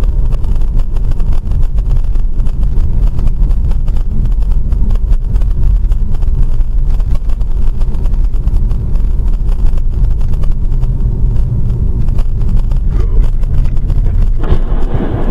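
Steady road and engine rumble of a moving car, heard from inside the cabin. Near the end a louder, harsher noise sets in as a truck just ahead overturns and slides on its side along the road.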